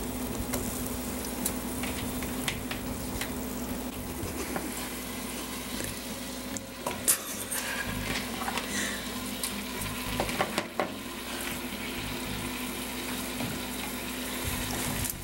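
Chicken wings sizzling in a hot stainless steel pan, a steady frying hiss, with a few light clicks near the middle as they are handled and seasoned.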